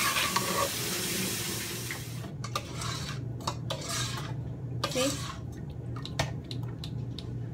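Metal spoon stirring a stainless steel pot of tamarind sauce on the boil: a hiss for about the first two seconds, then a string of clinks and scrapes of the spoon against the pot.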